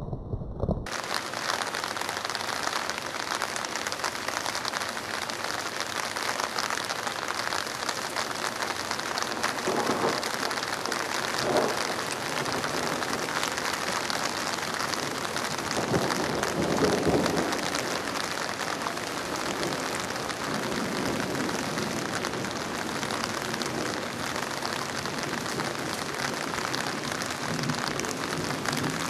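Heavy rain falling steadily, starting abruptly about a second in, with a few short louder thuds in the middle.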